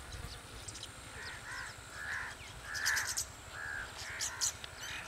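Crows cawing: a string of short calls, about half a dozen, with a few faint higher chirps among them.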